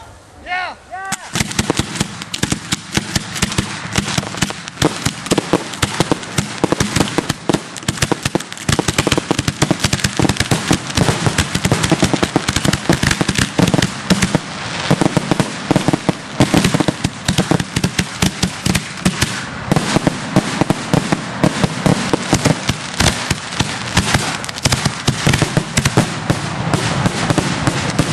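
Fireworks going off in a dense, rapid barrage of bangs and crackling that begins about a second in and carries on without a break.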